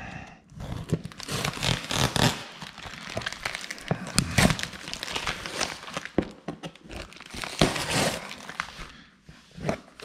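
A clear plastic packing-slip pouch and packing tape crinkling and tearing as they are cut and peeled off a cardboard shipping box with a folding knife, in irregular rustling bursts with scattered sharp clicks.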